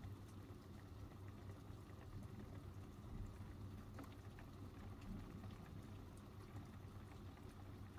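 Faint steady rain during a thunderstorm, with scattered light drop ticks over a low hum.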